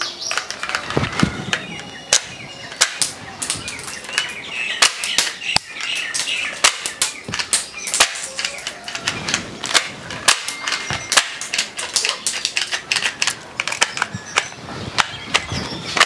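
Plastic toy pistol with a working slide and shell ejection being fired again and again: a string of sharp, irregular snapping clicks as the slide cycles.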